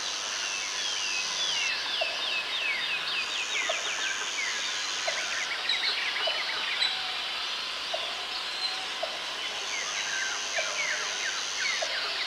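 Portable metal-cutting bandsaw cutting through steel angle: a steady high whine with many quick, squeaky falling chirps from the blade in the cut, and a faint click about once a second.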